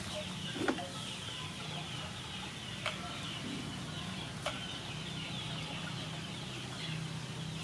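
Chickens clucking, with a steady chatter of high, short chirps. Three sharp knife taps on a wooden cutting board sound as long beans are sliced.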